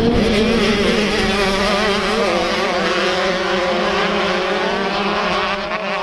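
A pack of motocross dirt bikes racing, several engines running hard at once, their pitches wavering up and down as the riders work the throttle.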